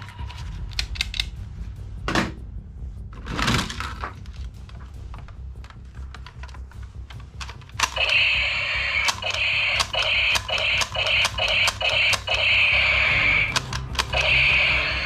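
Plastic toy gun being handled and fired: scattered clicks, then from about eight seconds in a loud rapid rattling that breaks off and restarts several times.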